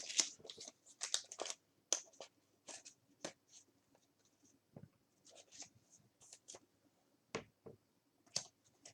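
Faint, irregular clicks and rustles of trading cards and a foil pack wrapper being handled, thickest in the first few seconds and then sparse.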